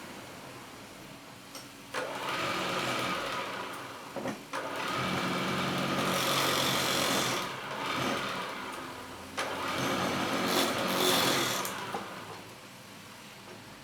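Wood lathe running with a steady motor hum, while a turning tool cuts into the spinning wood in three passes of a few seconds each.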